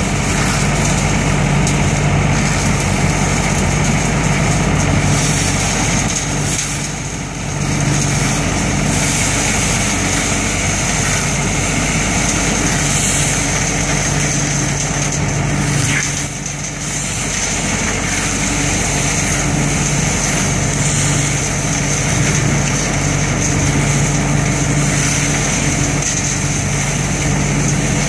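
ODB 650 trailer-mounted leaf vacuum running steadily, its engine hum under the loud rush of air and leaves being sucked through the intake hose. The sound eases briefly twice, about a quarter and about halfway through.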